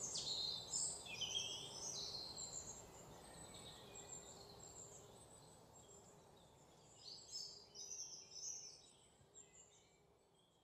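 Faint birdsong: small birds chirping in quick, high notes that glide downward, busiest in the first couple of seconds and dying away, with a few more chirps later on.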